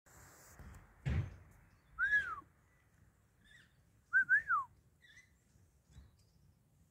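A person whistling to call pet birds: one rising-and-falling whistle about two seconds in, then a double whistle that slides down in pitch a couple of seconds later. A dull thump comes about a second in.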